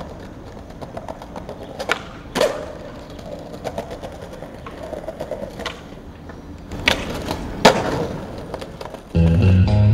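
Skateboard wheels rolling over paving slabs, with several sharp clacks of the tail popping and the board landing, in two close pairs. Music comes in near the end.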